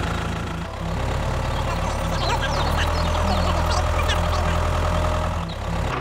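Tractor engine running steadily, a low rumble that shifts slightly just under a second in and again near the end.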